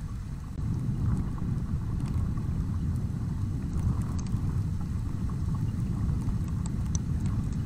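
Steady low rumble of wind buffeting a trail camera's microphone, with a few faint ticks.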